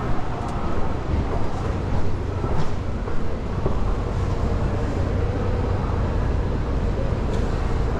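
Busy street ambience carried by a steady low rumble of road traffic, with a few faint clicks.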